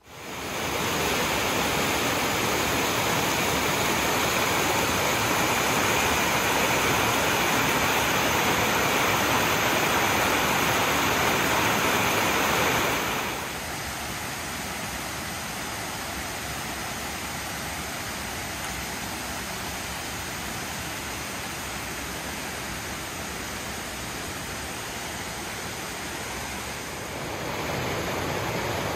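Steady rushing water, a loud even roar that drops abruptly to a softer level about thirteen seconds in and rises again near the end.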